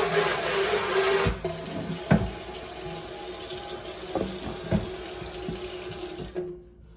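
Kitchen tap running steadily into a sink, with a few light knocks, then shut off about six seconds in.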